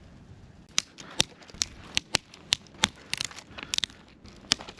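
Pieces of dry firewood knocking and clacking together in a series of sharp, irregular clacks as they are handled and stacked; the crisp knocks are the sign that the wood is dry.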